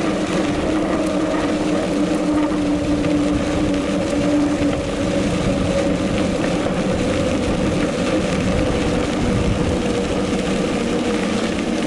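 Mountain bike rolling along a gravel path, heard through a bike-mounted action camera's microphone: a steady rumble of tyres on gravel and wind on the microphone, with a faint hum running under it.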